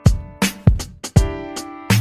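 Background music with a beat: sharp drum hits and held synth notes, the deep bass dropping out and coming back in near the end.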